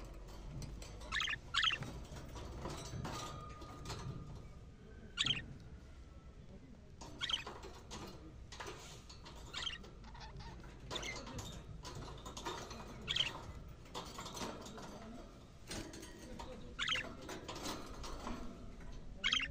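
Budgerigars giving short, scratchy chirps every second or two, mixed with soft clicks.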